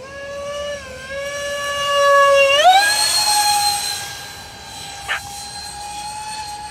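Twin electric ducted fans of a Freewing SU-35S RC jet whining. About two and a half seconds in, the throttle is pushed up: the whine steps sharply higher with a rush of air, then holds steady.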